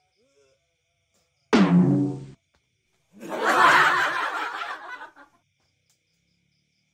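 Horror sound effects added in editing: a sudden low sting about a second and a half in that cuts off under a second later, then a harsher, noisier burst lasting about two seconds.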